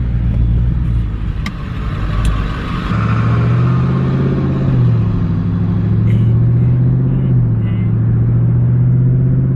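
Engine and road noise inside a moving car's cabin. About three seconds in it settles into a steady low engine drone that dips in pitch twice.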